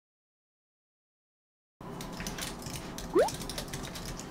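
Silence, then about two seconds in, typing on a computer keyboard: a run of light key clicks, with one short rising squeak about three seconds in.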